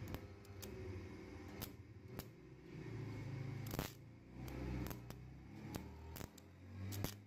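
Stick (arc) welder working on a steel axe head: the arc strikes and sputters in short spurts, giving irregular sharp crackles and snaps over a low hum that swells and fades.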